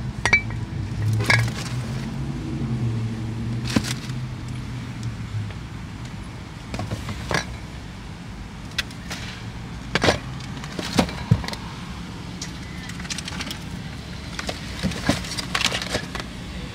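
Shopping bags and purchases being handled and loaded into the back of a car: scattered knocks, clicks and light clatter. A low steady hum underneath drops away about five seconds in.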